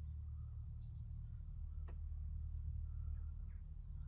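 Steady low rumble with faint high bird chirps over it, and two light clicks a little under a second apart about two seconds in.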